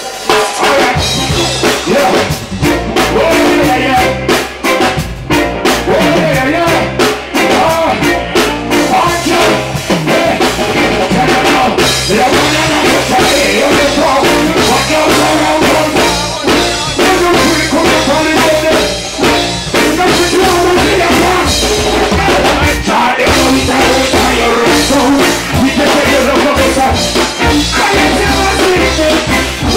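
Live reggae band playing loud through a PA, with drum kit and guitar, and a male singer's voice over it.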